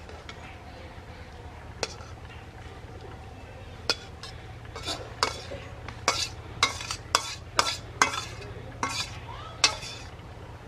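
A metal utensil scraping and knocking against a metal cooking vessel, about a dozen irregular strokes starting a few seconds in, over a steady low hum.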